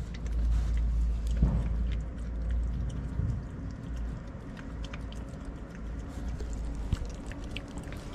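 Kitten eating wet cat food: small, faint chewing and licking clicks over a steady low rumble.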